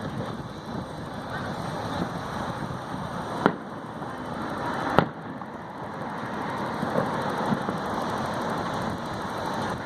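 Fireworks going off: two sharp, loud bangs a second and a half apart around the middle, and a few fainter pops, over a steady background noise.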